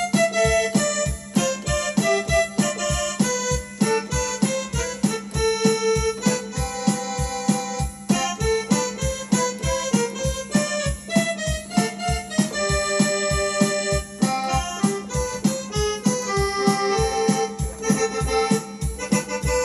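A song played on an electronic keyboard set to an accordion sound: a melody line over a steady bass note, with a steady, even drum-machine beat underneath.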